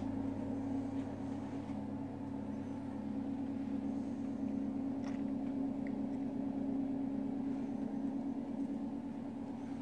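A steady low mechanical hum that holds unchanged throughout.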